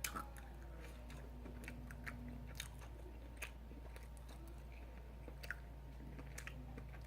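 A person chewing food close to the microphone: faint, irregular mouth clicks and soft crunches.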